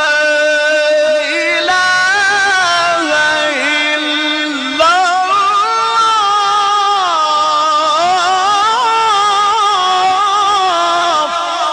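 A single voice in Quran recitation (tajwid), holding long, drawn-out melodic notes with slow ornamental turns and glides in pitch.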